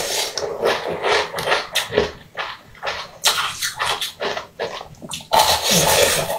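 Close-up eating sounds from a frozen, fish-shaped purple ice treat: a run of crunchy bites and chews with wet slurping. It gets louder and denser near the end as the mouth goes back onto the ice.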